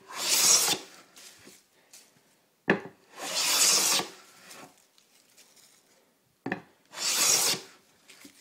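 Spokeshave cutting wood in three slow strokes, each a dry shaving hiss lasting under a second, about three to four seconds apart. The second and third strokes each start with a sharp tap as the blade meets the wood.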